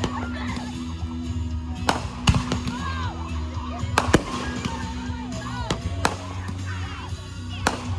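Fireworks going off: about five sharp bangs at uneven gaps of one to two seconds, over music playing from a loudspeaker.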